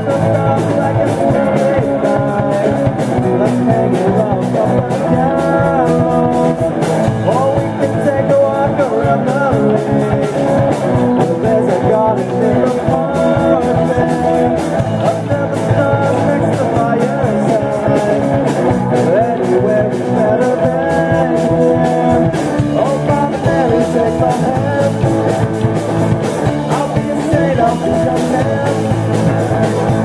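Live rock band playing: Ludwig drum kit, electric bass, electric guitar and Yamaha keyboard.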